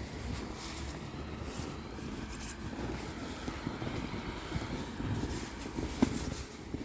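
Steady low rumble of a running vehicle, with a short click about six seconds in.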